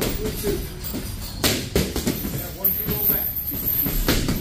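Punches smacking into boxing focus mitts: a few sharp hits, two in quick succession about a second and a half in and another near the end, over background music.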